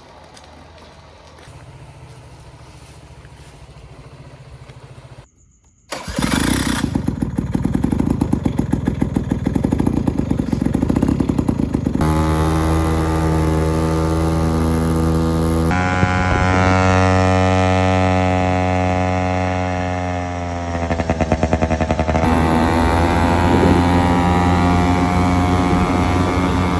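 Honda Gyro X's 50cc two-stroke single-cylinder engine catching about six seconds in. It runs with a rapid uneven pulse at first, then settles into a steady run, with the revs dipping and rising again near the end.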